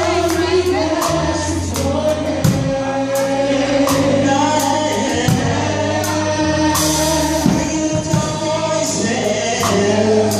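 Gospel vocal group singing in harmony over a live band, with steady bass notes under the voices and drum and cymbal hits, including a bright cymbal crash about seven seconds in.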